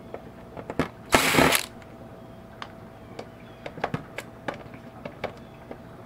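Ryobi cordless drill/driver running in one short burst of about half a second, about a second in, backing out a Phillips screw. Scattered light clicks and taps follow.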